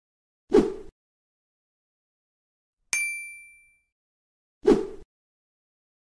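Added outro sound effects over dead silence: a short low thump about half a second in, a bright metallic ding that rings out and fades about three seconds in, and a second thump like the first near the end.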